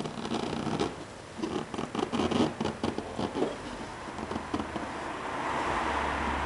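Irregular scratching and scraping of hands or tools working on a plastic car bumper. About four and a half seconds in, a steady fan-like hum begins.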